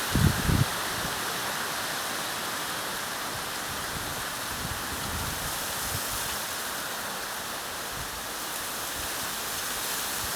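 Mountain wind blowing steadily, with low gusts buffeting the microphone in the first half second.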